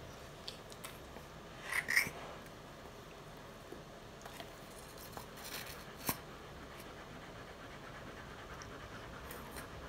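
Faint scratching and rustling of gloved hands handling a wet newborn Rottweiler puppy in a towel, with scattered soft clicks and a brief louder pair of sounds about two seconds in.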